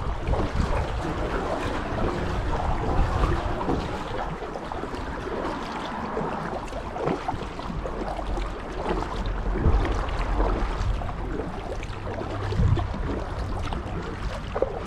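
Kayak paddling: the paddle blades dipping and splashing in the water, with wind buffeting the microphone as a steady low rumble.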